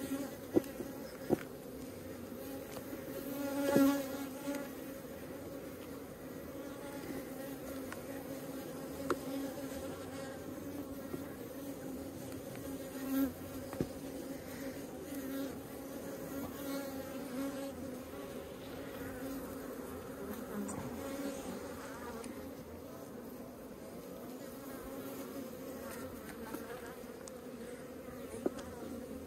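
Honeybees humming steadily from an opened hive, the colony's drone holding one low pitch, with a single bee buzzing close by and louder around 4 s. A few short light clicks sound over it.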